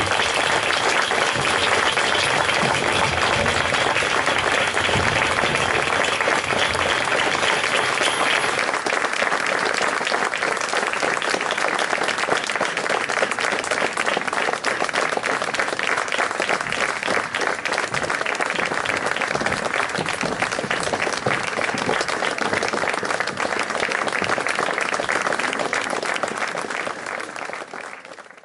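Audience applauding steadily, a dense round of clapping that fades away at the very end.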